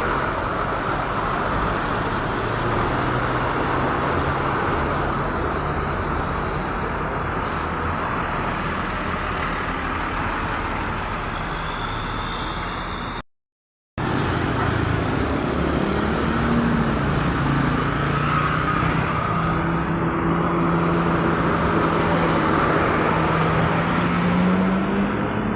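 Roadside traffic noise of passing road vehicles, broken by a brief drop to silence at a cut about 13 seconds in. After the cut a heavy vehicle's engine drones low and steady, rising in pitch near the end as it speeds up.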